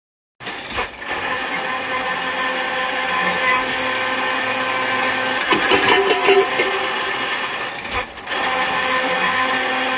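Motor of a cable winch running steadily with a whining hum. Louder rattling about halfway through, and a brief dip a couple of seconds before the end.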